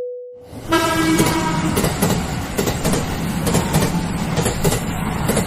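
A train running on rails: a steady rumble with wheels clicking over rail joints about twice a second, and a brief humming tone near the start.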